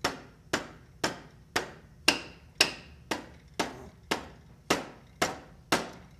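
Rubber-headed dead blow mallet striking the end of a rust-seized shaft in an old Sears contractor table saw's housing, about twelve steady blows at roughly two a second. It is being driven a few thousandths at a time to free the seized parts.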